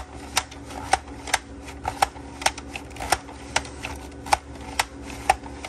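A kitchen slicing gadget cutting through raw potatoes, a sharp click or chop about twice a second as each slice is taken.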